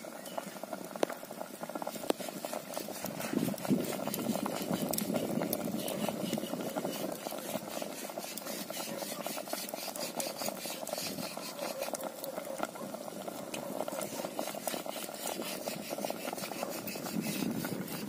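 Pot of fish paksiw simmering over a split-wood fire, with the fire crackling: a steady noise full of small pops and crackles.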